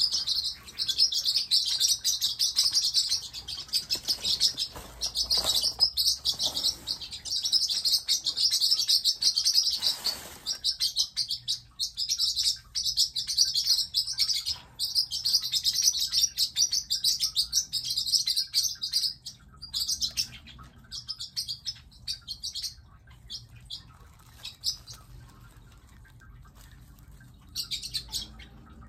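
Pet parrotlets chirping in rapid, continuous bursts for most of the first two-thirds, then thinning to scattered calls, with a fresh burst near the end. Packing paper crinkles faintly underneath in places.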